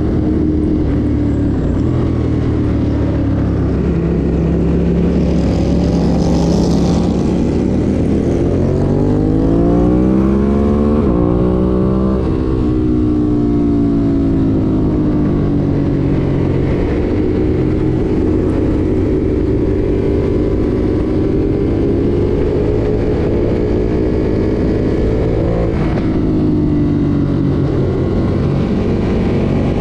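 Ducati Monster motorcycle's L-twin engine running under way, the revs climbing for several seconds, dropping sharply about eleven seconds in, then rising and falling more gently, with another quick drop near the end.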